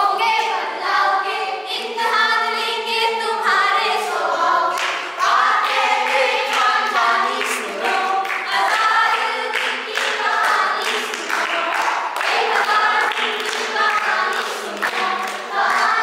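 A group of children and teenagers singing together, unaccompanied, with hand claps keeping time.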